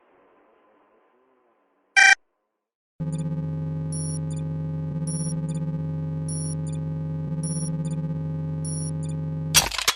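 Synthesized sci-fi electronic sound effects. A short electronic chirp comes about two seconds in. A steady electronic hum then starts, with short high beeps about once a second, and it ends in a loud burst of noise that cuts off suddenly.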